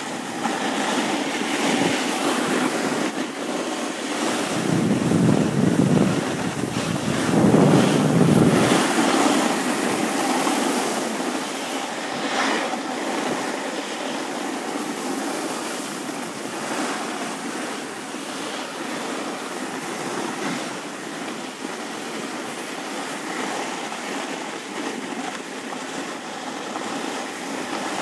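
Snowboard sliding and scraping over groomed snow, a steady hiss, with wind buffeting the microphone, heaviest about five to nine seconds in.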